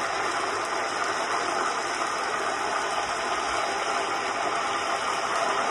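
Steady crackling hiss of food cooking in a pot and pan on a gas stove, unchanging throughout.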